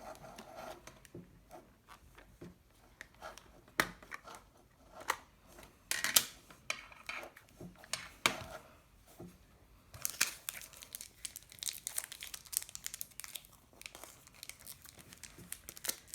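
Plastic wrapper of a pack of ZINK photo paper being torn open and crinkled by hand: scattered small clicks and rustles at first, a louder burst about six seconds in, then continuous crinkling for the last six seconds.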